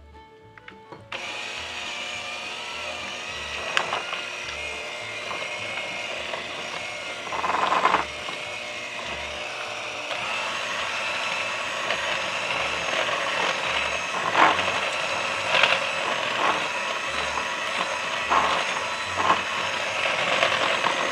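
Electric hand mixer switching on about a second in and running steadily, beating eggs into creamed butter and sugar in a glass bowl, with a few sharp clicks of the beaters knocking against the bowl.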